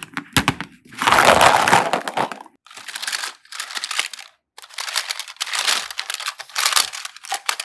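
Slime being squeezed and pressed by hand, making a run of crackling, crunching bursts: a few sharp clicks, then a long crackle, then shorter crackles.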